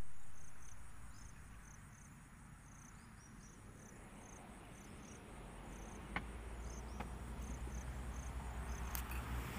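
Insects, likely crickets, chirping in a steady rhythm of short high-pitched chirps, two to three a second. A low rumble comes in from about halfway.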